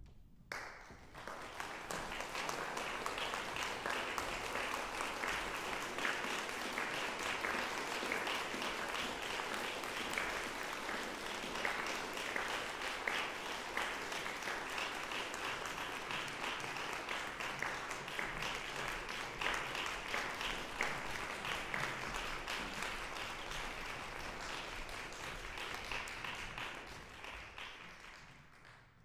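Audience applauding, building up over the first couple of seconds, holding steady, then dying away near the end.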